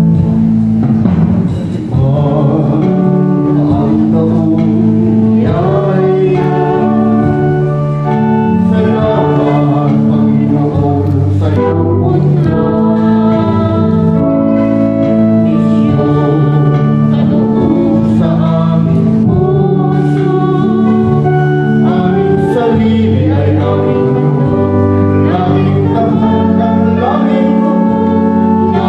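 Recessional hymn at the end of Mass: voices singing to sustained keyboard accompaniment.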